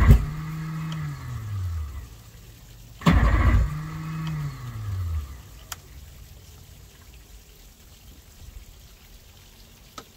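Cold start of a 1998 Evinrude 115 hp FICHT V4 two-stroke outboard: two short cranking bursts about three seconds apart, each followed by a falling whine as it spins down, and the engine does not catch. The owner puts the hard starting down to a weak battery.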